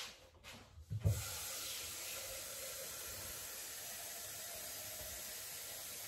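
A low thump about a second in, then water running steadily from a kitchen tap, filling a container.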